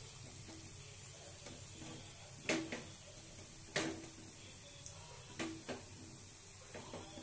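Batter-coated pointed gourd leaf fritters frying in refined vegetable oil in a kadai: a low steady sizzle broken by several sharp pops.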